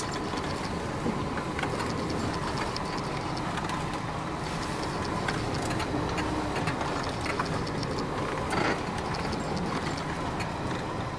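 Cab noise of a vehicle driving over a rutted, snow-covered forest road: steady engine and road noise with frequent small knocks and rattles from the bumps.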